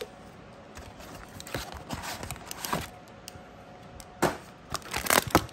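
Hands handling Magic: The Gathering cards and a cardboard collector booster box: scattered light taps and clicks, with a cluster of sharper knocks near the end.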